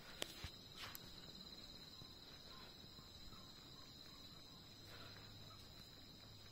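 A cricket trilling steadily and faintly on one high note, with a few light clicks in the first second.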